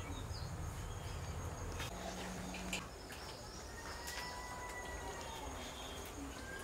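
Outdoor ambience: a steady high insect drone, a faint drawn-out bird whistle about four seconds in, and a few scattered light clicks.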